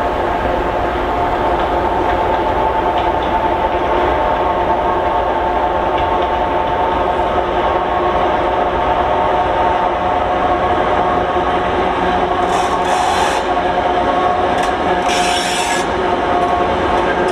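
A two-section 2TE116 diesel locomotive's V16 diesel engines working steadily under load as it hauls a work train past, with the wheels clattering over the rail joints. There are two short hisses near the end.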